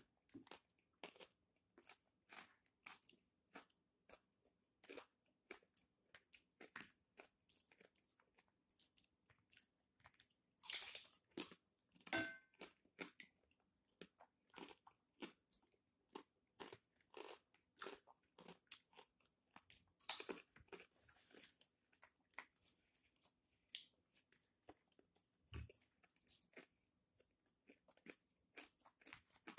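A person chewing crispy pork skin close to the microphone: a steady run of small crunches and wet mouth clicks, with a few louder crunching bites, the loudest about eleven seconds in.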